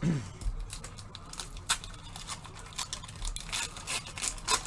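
Foil wrappers of Upper Deck hockey card packs being torn open and crinkled by hand, with cards handled and set down: a run of irregular crackling rustles.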